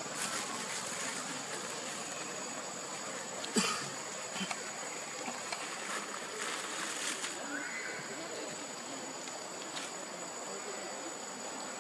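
Outdoor ambience: a steady hiss with a constant high-pitched whine, broken by scattered small clicks. The loudest is a sharp knock about three and a half seconds in, and a short rising chirp comes near the eight-second mark.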